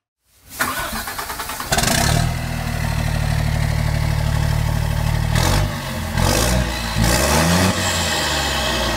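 Truck engine cranked and catching: a pulsing start from silence about half a second in, running steadily and loudly from about two seconds in, then revved up and down repeatedly in the second half.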